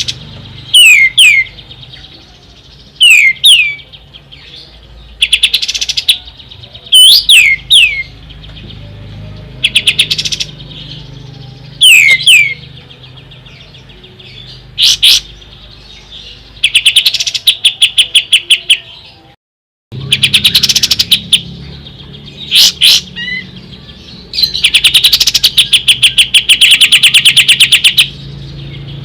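Kapas tembak songbird calling: fast rattling trills alternating with short whistles that slide downward, in bouts every couple of seconds. A long, sustained rattle comes near the end, and the sound cuts out briefly about two-thirds of the way through.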